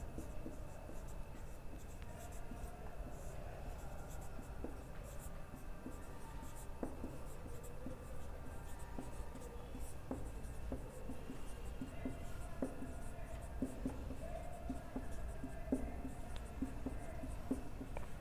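Felt-tip marker writing on a whiteboard: faint scratchy strokes with short squeaks, coming thicker in the second half.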